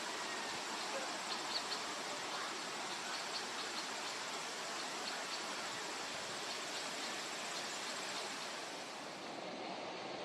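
Backyard outdoor ambience: a steady hiss of background noise, with faint, brief high chirps scattered through it.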